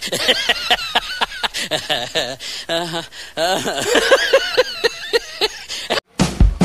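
People laughing and giggling in high, rapid, repeated bursts for about six seconds. Then the sound cuts to silence, and loud music starts abruptly near the end.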